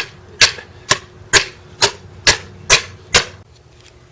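Eight sharp, evenly spaced blows, about two a second, of a sonic gopher spike being hammered down into the ground.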